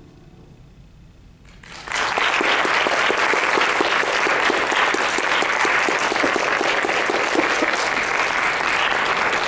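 A brief hush as the final piano notes die away, then audience applause breaks out about two seconds in and continues steadily.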